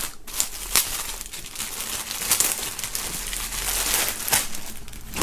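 Thin clear plastic wrapping film crinkling and crackling as a folded T-shirt is pulled out of it by hand.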